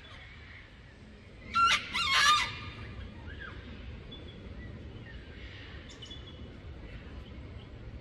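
Wild bird calls: two loud, harsh pitched calls close together about one and a half to two and a half seconds in, with fainter bird calls in the background.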